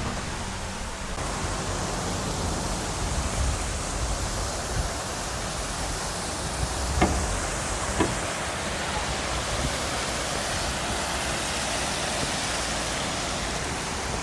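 Steady rushing noise, with two short sharp clicks about a second apart near the middle.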